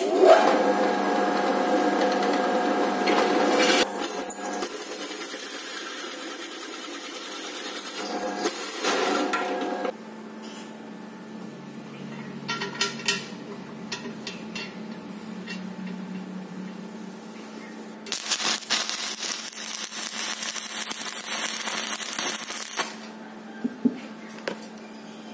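A drill press runs steadily as it cuts a hole in the top of a steel fuel tank for about ten seconds, then stops. After a quieter pause with a few small clicks, a stick welder's arc crackles and hisses for about five seconds as a steel bushing is welded onto the tank.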